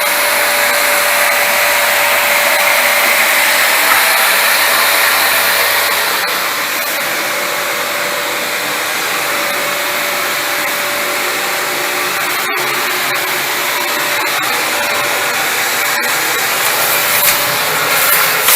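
Vacuum cleaner running steadily, a rushing noise with a constant hum tone. A couple of sharp knocks and some bumping near the end.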